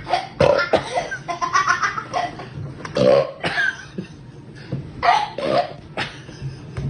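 A man burping loudly several times in a row, the longest burp about three seconds in.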